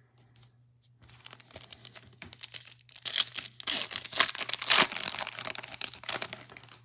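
Foil wrapper of a Topps Chrome trading-card pack being torn open and crinkled. The crackling starts about a second in and is loudest in the middle.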